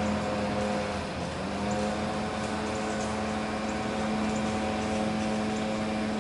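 Blower's small engine running steadily at high throttle, pushing air to drive a canoe, with a brief dip in pitch about a second in.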